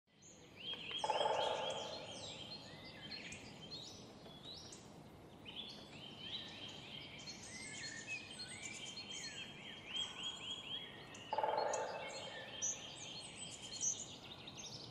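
Many small birds chirping together, with runs of quick repeated falling notes. Two louder, lower bursts, each about a second long, come about a second in and again about eleven seconds in.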